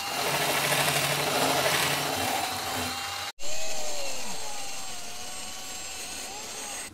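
Handheld power tool whirring as it grinds at engine surfaces, throwing debris into the engine. It runs in two stretches split by a sudden break. The second starts loudest, then fades slowly as its pitch sags.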